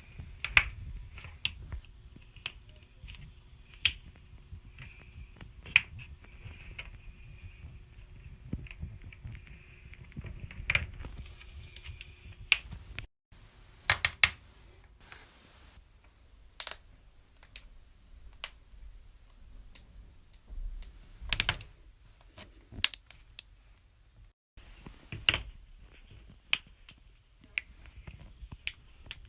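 Finger knuckle and toe joints cracking: a string of sharp, irregular pops and clicks, some single and some in quick clusters.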